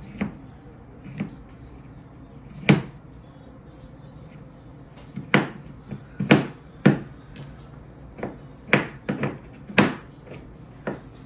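A series of irregular, sharp knocks and bangs, about a dozen, with a clustered run between about five and ten seconds in.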